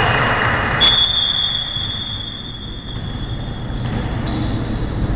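A referee's whistle blown in one long, steady, high blast of about three seconds, starting about a second in, over the steady background noise of the gym.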